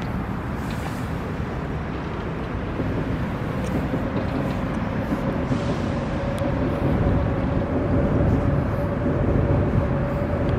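Steady low vehicle rumble growing louder, with a steady humming tone joining about four seconds in.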